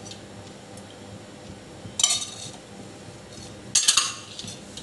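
Steel spoon and steel bowl clinking together: two short metallic clatters, about two seconds in and again near four seconds.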